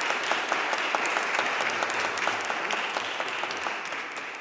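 Audience applause, a dense patter of many hands clapping that slowly fades.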